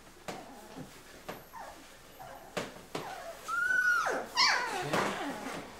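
Two-and-a-half-week-old Labrador puppies whimpering, with a short high squeal that rises and falls about three and a half seconds in, among a few light knocks.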